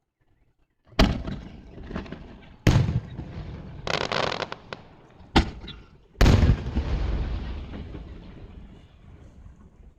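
Aerial fireworks shells bursting with sudden booms: four big bursts about one, two and a half, five and a half and six seconds in, each rolling away in a long echo, with a stretch of crackling around four seconds in.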